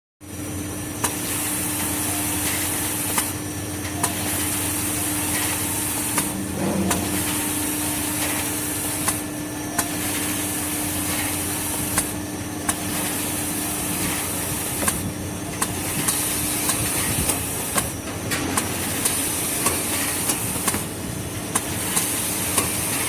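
Tissue-paper log saw cutting machine running: a steady high hiss that drops out briefly every few seconds, with a sharp click about once a second, more often near the end. A steady hum under it stops about two-thirds of the way through.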